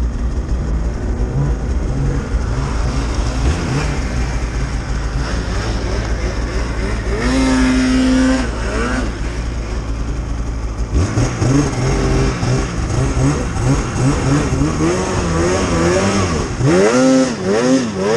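Polaris Pro-RMK 800 snowmobile's two-stroke engine running hard through deep snow, held at a high rev for about a second some seven seconds in, then rising and falling in quick throttle surges from about eleven seconds on as the sled is worked onto a sidehill.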